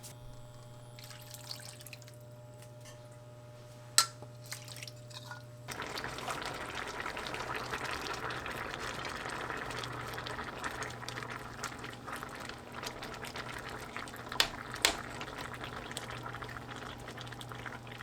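A steady low hum with a single sharp clink, then water running steadily from a kitchen tap from about six seconds in. Two quick clinks of dishes come near the end.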